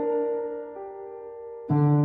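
Background piano music: slow held chords, a new one coming in about three-quarters of a second in and a louder one with a deep bass note near the end.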